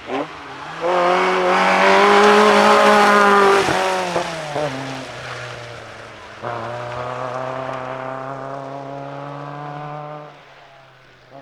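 Historic rally car engines at high revs on a forest stage. The first car's engine is held hard, then drops away after about three and a half seconds with a couple of short blips. About six and a half seconds in, another loud stretch of engine starts suddenly, runs at a steady pitch and cuts off a little before the end.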